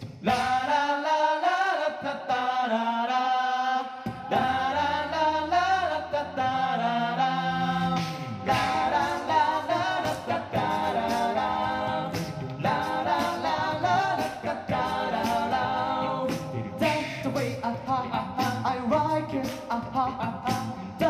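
Five-man a cappella group singing in close harmony with no instruments. A bass voice comes in about four seconds in, and vocal percussion keeps a beat from about eight seconds in.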